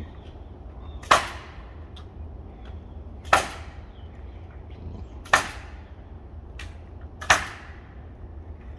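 Four sharp bangs about two seconds apart, each with a short ringing tail, typical of nails being driven during house repair work.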